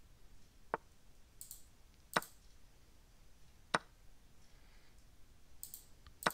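Sharp single clicks as moves are played in an online blitz chess game, four in about six seconds, with two short soft hisses between them.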